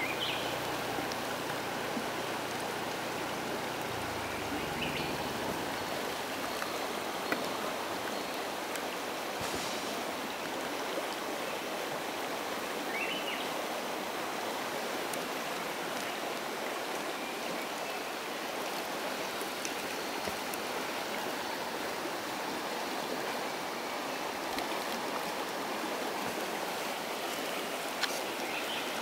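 Running water of a stream, a steady even rush with no break, and a light click near the end.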